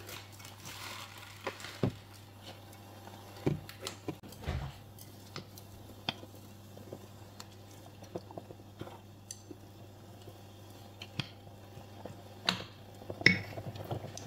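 Kitchen handling sounds: occasional light clicks and knocks of utensils and dishes, a few louder ones about four seconds in and near the end, over a steady low hum.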